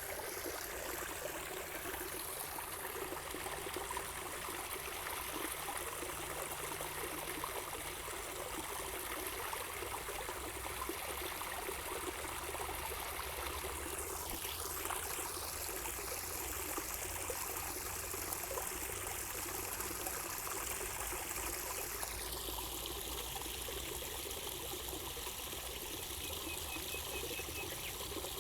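Running water trickling steadily, its sound changing slightly about three quarters of the way through.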